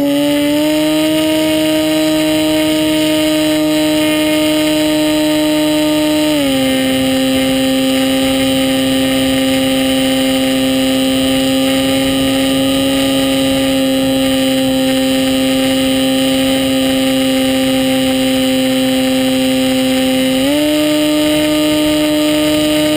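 Motor and propeller of a radio-controlled model plane whining at a steady pitch, heard from the onboard camera over a hiss of rushing air. The pitch drops a step about six seconds in as the throttle is eased back, and rises again near the end as it opens up.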